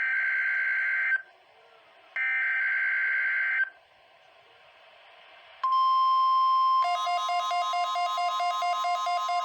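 NOAA Weather Radio weekly test signal. First come two bursts of the SAME digital header, each a buzzing data screech about a second and a half long, with short silences between. About six seconds in, the steady 1050 Hz warning alarm tone begins, and about a second later a fast, evenly repeating electronic beeping pattern joins it.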